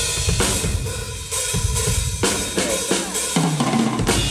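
Drum kit being played during a sound check: kick drum, snare and cymbals in a steady groove.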